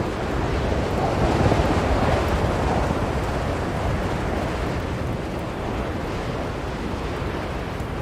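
Blizzard wind blowing in a steady rush, swelling into a stronger gust about a second in and then easing.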